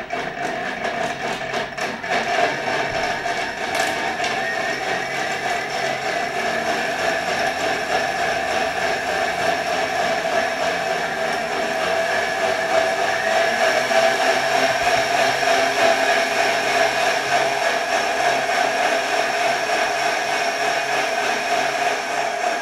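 Thermomix-style food processor running at speed, blending frozen berries and nuts into a thick ice-cream purée. A fast rattle in the first couple of seconds settles into a steady motor whine.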